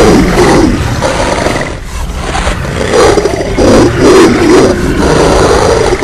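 Custom King Ghidorah monster roar sound effect, layered from animal roars such as tiger, lion and slowed-down wolf snarls. It comes in several loud surges, drops away briefly about two seconds in, then swells again.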